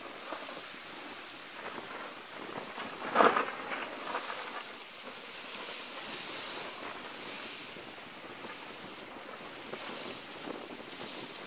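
Wind buffeting the microphone over a steady wash of lake waves, with one short, loud gust-like burst about three seconds in.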